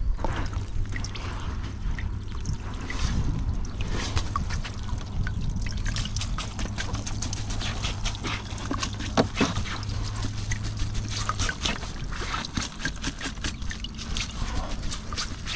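Water trickling and dripping off a freshly lifted whitebait net, with many small crackles and taps as a hand works along the wet mesh.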